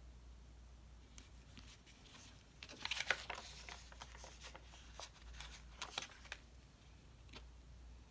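Paper sticker sheets being handled and stickers peeled from their backing: soft papery rustles and crackles, a cluster about three seconds in and another around six seconds.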